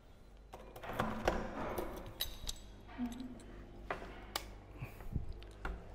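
A room door's round knob and latch being worked and the door opened: a series of uneven clicks, knocks and rattles.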